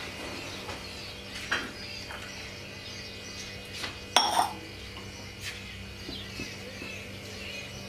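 A few metal clinks and knocks from a steel tumbler and a small steel saucepan as milk is poured into boiling tea on a gas stove, the loudest clink about four seconds in, over a low steady background.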